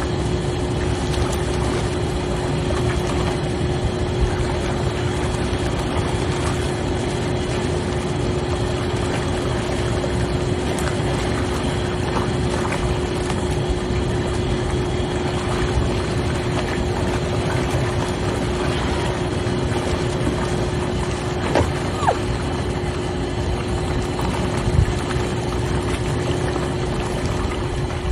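Hot tub jets and pump running: a steady churn of water with an even motor hum.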